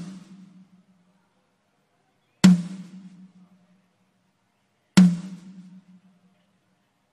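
A single drum from a drum kit struck once every two and a half seconds, each hit ringing with a low tone for about a second: one drum being checked on its own in a soundcheck. Two hits fall inside, and another comes right at the end.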